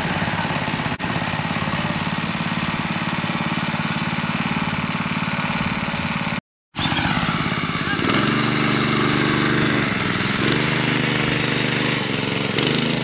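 Small petrol go-kart engine running with a fast, even chatter. After a brief cut-out about halfway through, it goes on with its pitch stepping up and down as the throttle is opened and eased.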